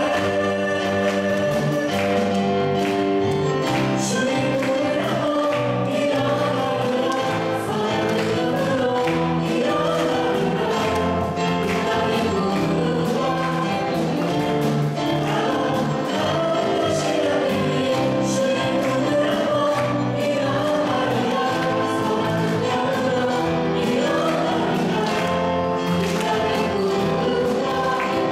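Praise team of a man and two women singing a contemporary worship song in a church, backed by a live band.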